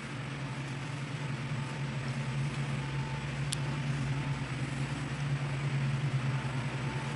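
A steady low mechanical hum that grows slowly louder, with a single light click about three and a half seconds in.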